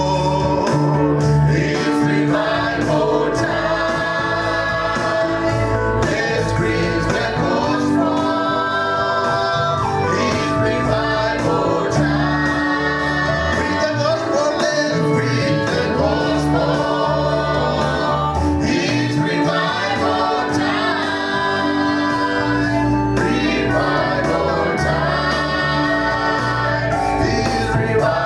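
Gospel song with a choir singing over instrumental backing and a steady beat.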